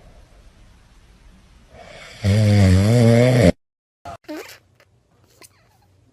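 A sleeping pet snoring: one long, loud, pitched snore about two seconds in, with quieter breathing before it. The sound cuts off abruptly about three and a half seconds in, leaving a few faint short sounds.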